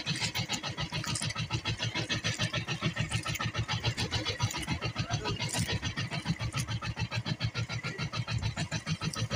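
Small engine of an outrigger fishing boat running steadily, a fast even chugging of about six beats a second.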